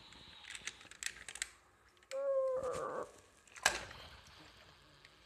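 Light clicks of die-cast toy cars knocking against a porcelain toilet rim, a brief wavering squeal, then a sharp splash a little over three and a half seconds in as a toy car drops into the water of the toilet bowl.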